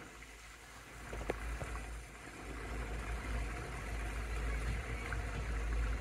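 Steady rushing and splashing of pond water fountains, with a low rumble that grows louder after the middle and a single faint click a little over a second in.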